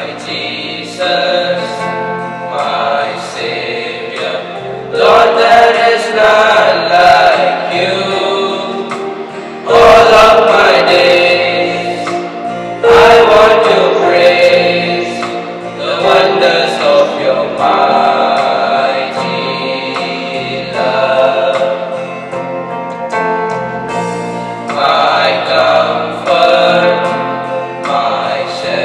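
A small group of teenage boys singing a prayer song together into one microphone, in phrases a few seconds long with short breaks between them.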